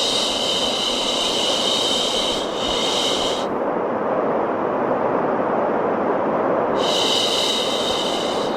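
A long shhh shushing sound layered over steady white noise. The shush runs until about three and a half seconds in, with a brief dip partway. It falls away to the plain noise, then a second shush starts near the end.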